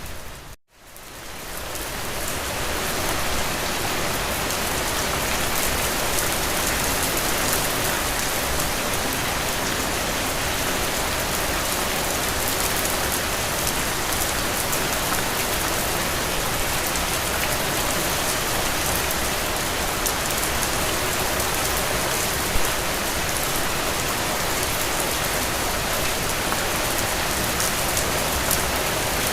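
Steady rain falling. About half a second in it cuts out to near silence and fades back up over a second or two, then runs on evenly.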